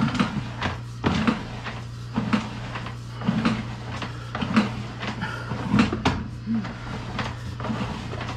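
Irregular clunks and knocks, roughly one a second, from a sewer inspection camera's push cable and reel as the camera head is fed down the drain line, over a steady low hum.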